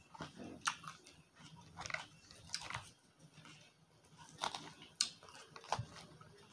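Salad being chewed and crunched close to the microphone, with a handful of short, sharp clicks scattered through.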